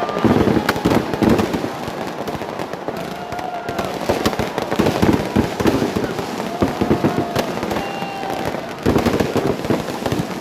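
Fireworks going off in a dense run of crackling bangs, with heavier flurries about a second in, around four to five seconds in, and again near the end. A few short, thin high tones rise above the crackle now and then.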